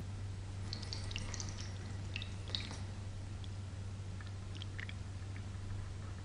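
Water poured onto a fine-holed aluminium gutter screen, dripping and splashing into the sheet-metal gutter beneath: a quick flurry of drops over the first few seconds, then a few scattered drips.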